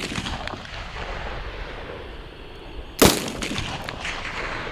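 A single rifle shot about three seconds in, with a long rolling echo. The echo of an earlier shot is fading at the start, under a few faint clicks.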